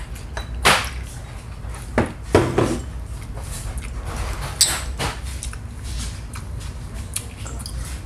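Soju poured from a glass bottle into a shot glass, then shot glasses clinking together in a toast. A handful of sharp knocks of glass on the wooden table fall between them.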